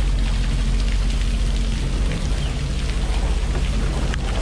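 Jet ski engine running at low speed under a steady hiss of splashing water, with scattered sharp ticks of water drops hitting.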